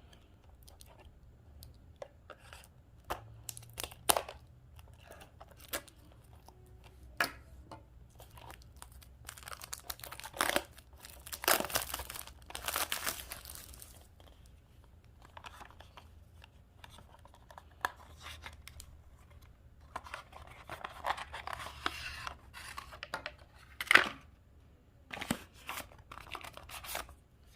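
Small product package being opened by hand: packaging tearing and crinkling in stretches, between scattered clicks and taps as the box and its contents are handled, with one louder click near the end.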